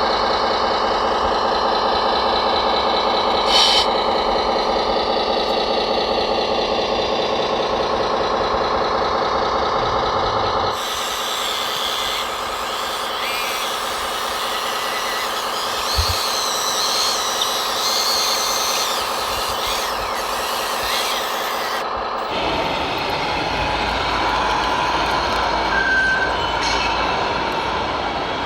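Engine sound from scale RC trucks, with steady diesel-style running. It changes abruptly twice, about 11 and 22 seconds in, as separate clips are cut together.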